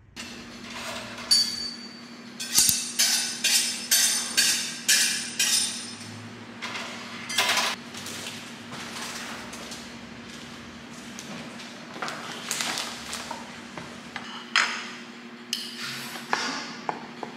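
Kitchen food-prep sounds: sharp knocks and clinks of dishes and utensils on a stone counter, with a quick run of knocks about two a second a few seconds in, then scattered clinks. A steady low hum sits beneath.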